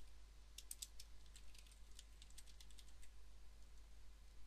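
Faint typing on a computer keyboard: a quick run of keystrokes that starts about half a second in and stops about a second before the end, as a password is entered.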